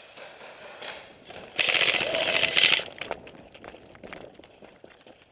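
Airsoft gun firing a short full-auto burst of just over a second, a fast rattle of shots about a second and a half in, followed by a few scattered fainter clicks.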